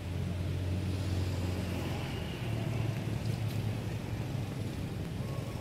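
Low steady hum of a motor vehicle engine running, shifting slightly in pitch about two and a half seconds in.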